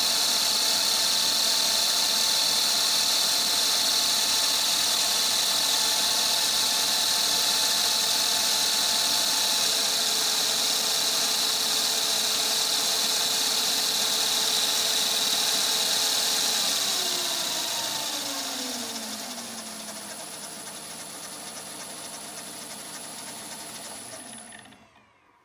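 Smarty AT-300 lathe's belt drive and spindle running at close to 2000 rpm, driven by a 750 W three-phase motor on a VFD, with a steady high whine. About 17 seconds in, the speed is turned down at the inverter, and the pitch slides down as the sound grows quieter. It cuts off abruptly just before the end.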